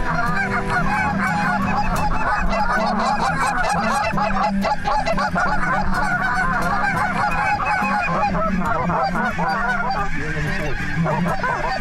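A large flock of Canada geese honking in flight, many calls overlapping into a continuous chorus.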